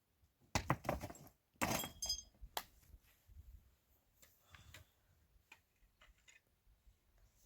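Two short bursts of clattering and clinking, as of hard objects being handled, about half a second and a second and a half in; the second carries brief ringing notes, like metal or glass. A few faint ticks follow.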